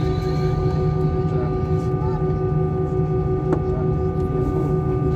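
Cabin noise of an Airbus A320-family airliner taxiing: its jet engines at low taxi power give a steady low rumble with a steady multi-tone whine and hum. A single sharp click about three and a half seconds in.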